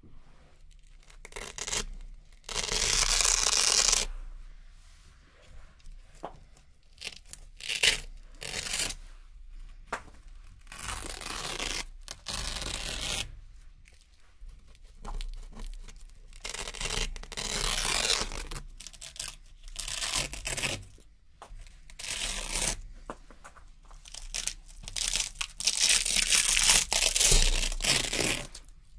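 Small strips of hook-and-loop (Velcro) tape being peeled off a Velcro-covered board: a string of crisp, crunchy rips, some drawn out for a second or two and many short ones, with quiet gaps between.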